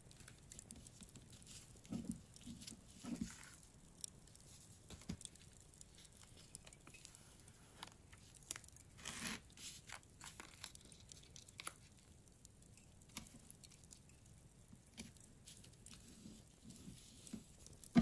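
Bonfire crackling with scattered small pops, mixed with soft paper rustling as paper pieces are handled, peeled and pressed down.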